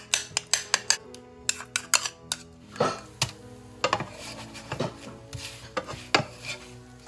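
A metal spoon clinking rapidly against a ceramic bowl as a dipping sauce is stirred, followed by scattered knocks and scrapes of a spatula against a frying pan.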